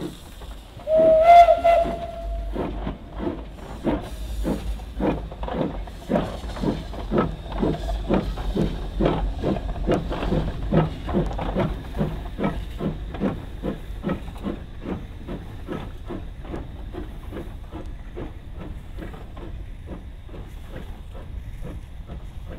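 Saddle-tank steam locomotive gives one short whistle blast about a second in, then works along with steady, rhythmic exhaust chuffs that grow fainter in the second half.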